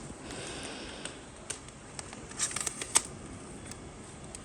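Scattered clicks and handling rustle as a weather radio is switched over to another station, with a faint hiss in the first second.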